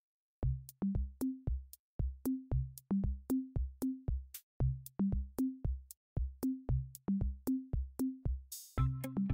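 Background music: an electronic drum-machine beat of low kick-drum thumps and sharp clicks, starting about half a second in. A cymbal swell and sustained synth notes join near the end.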